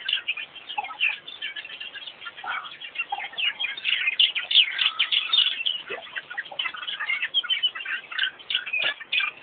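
A busy chorus of many birds chirping and twittering at once, short high calls overlapping without a break.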